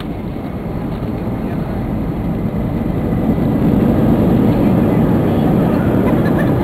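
Airbus A320 engines and runway rumble heard from inside the cabin during the landing roll. The low roar swells for the first few seconds as reverse thrust builds, then holds.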